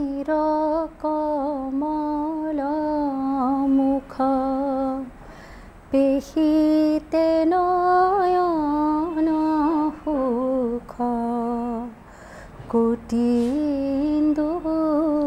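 A woman's voice singing a slow melody on long held notes with wavering, ornamented bends, in phrases broken by short pauses.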